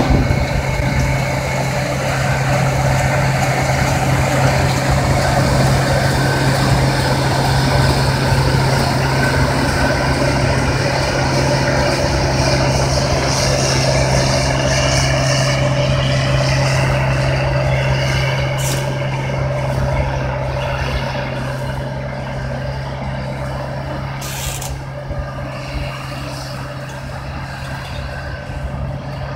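Case International 2022 cotton picker's diesel engine running steadily under load while it picks cotton, with a strong low hum, growing somewhat quieter in the second half as the machine moves away. Two short hisses come late on.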